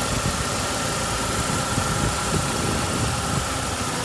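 1998 Jeep Wrangler's 2.5-litre four-cylinder engine idling steadily, heard over the open engine bay, with a thin steady whine above the rumble.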